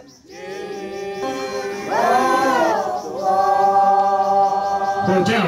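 A group of men chanting together in long, held notes, a traditional call ('ohnet') sung while working in the fields. The voices fade in and swell louder about two seconds in.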